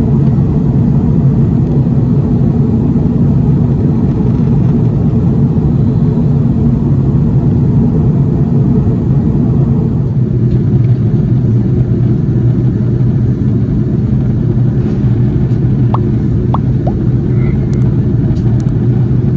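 Steady cabin drone inside an Airbus A330-300 airliner in flight: engine and airflow noise with a low rumble. The tone shifts slightly about halfway through.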